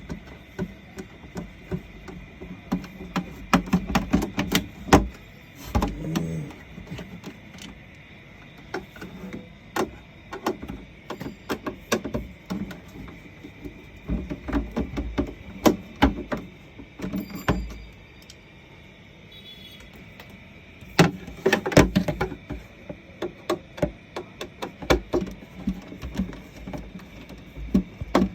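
Screws being undone from the plastic underside of a KBC 0820CD paper shredder: irregular clicks and knocks of the screwdriver and the housing being handled, with a quieter pause partway through.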